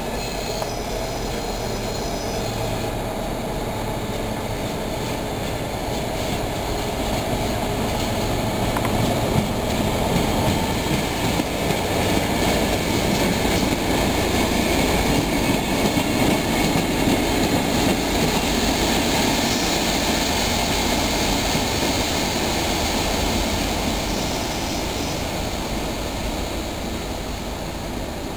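Dv12 diesel-hydraulic locomotives running past, their SACM MGO V16 four-stroke diesel engines working, with wheels rolling on the rails. The sound builds to its loudest about halfway through as they pass close, then eases as they move away.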